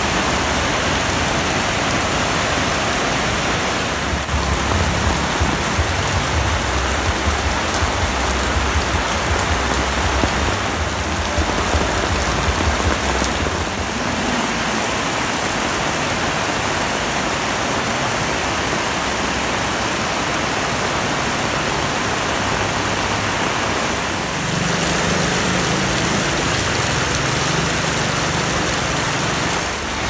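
Heavy rain pouring onto a flooded street: a dense, steady hiss. A vehicle engine rumbles through it for several seconds about a third of the way in and again near the end.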